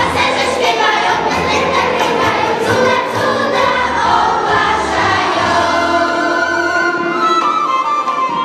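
A children's choir sings a Christmas carol in Polish over an instrumental accompaniment with a steady low bass. The bass drops out about seven seconds in while the singing carries on.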